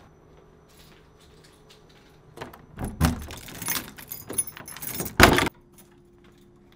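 A bunch of keys jangling and scraping into a door lock as a key is worked in the cylinder, a run of clattering metal clicks, ending in a loud clunk about five seconds in.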